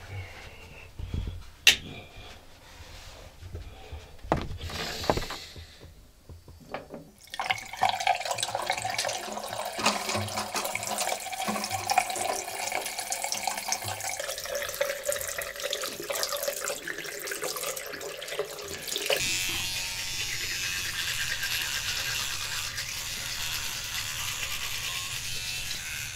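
A few knocks and clicks, then a basin tap running into a ceramic washbasin from about seven seconds in. About two-thirds of the way through, the water gives way to the steady buzz of an electric toothbrush brushing teeth.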